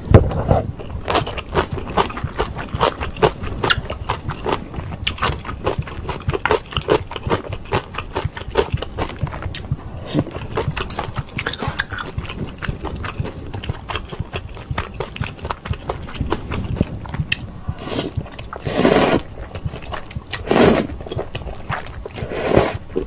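Close-up, wet chewing of instant ramen with many small mouth clicks and smacks, then three loud noodle slurps near the end.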